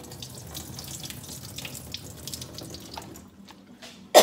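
Water splashing into a stainless steel sink as dried fish is rinsed and drained in a bowl, easing off about three seconds in. A sudden cough breaks in at the very end.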